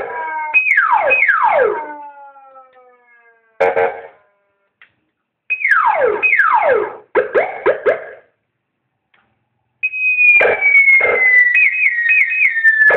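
Electronic siren modulator sounding through a horn speaker, stepping through different siren tones with short silent gaps between them. First two quick falling sweeps, then short choppy bursts, and near the end a slowly falling wail broken by a quick warble.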